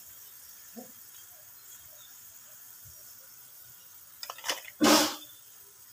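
A pan of watery curry liquid heating on the stove with a faint steady hiss. About five seconds in, after a few light clicks, comes a short loud noise.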